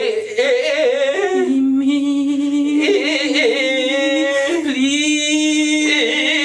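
Drawn-out, singing-like vocalizing: long held notes at a steady pitch, with another line that wavers and slides over it and no break between sounds.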